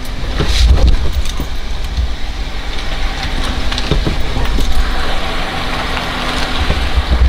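2003 Honda Accord running and rolling slowly, heard from inside the cabin as the car is test-driven on freshly replaced front brake pads: a steady low rumble of engine and tyres.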